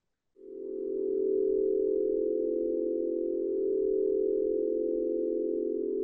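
A steady drone of several close, pure tones fades in about half a second in and holds evenly. It is the opening of a chakra-tuning sound-healing recording.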